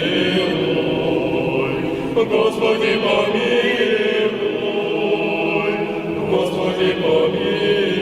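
Vocal ensemble singing an Orthodox-style chant in harmony, with long held notes.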